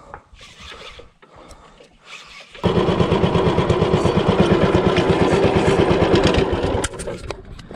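Small boat engine running with a fast, even beat for about four seconds. It starts suddenly a couple of seconds in and stops abruptly near the end.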